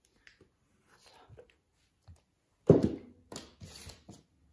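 A drinking glass and other small items set down on a table: a few faint taps, then a solid thunk about two and a half seconds in, followed by several lighter knocks.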